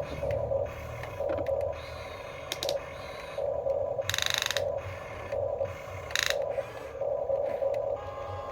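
Small electric gear motors of radio-controlled Huina construction truck models whirring in short bursts as they are worked. There are two brief, louder rasping bursts about four and six seconds in.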